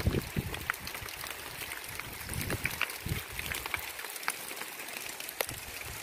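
Light rain: scattered drops ticking on leaves and ground, with low rumbles of wind on the microphone at the start and again about two and a half seconds in.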